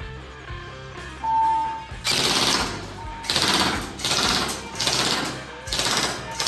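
G&G ARP9 3.0 electric airsoft gun firing several short full-auto bursts, its motor and gearbox cycling fast, with a short electronic beep about a second in.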